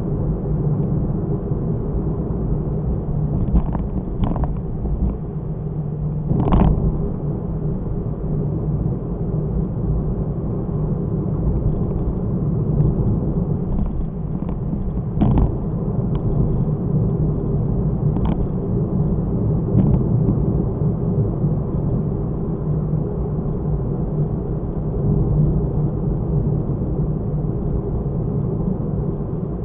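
Car driving, its steady low engine and road rumble picked up by a dashcam inside the car. A few short knocks sound through it, the loudest about six and a half seconds in and again about fifteen seconds in.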